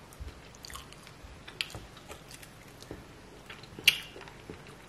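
A person eating a sauced chicken drumstick: faint chewing and mouth smacks with scattered small clicks, one sharper click about four seconds in.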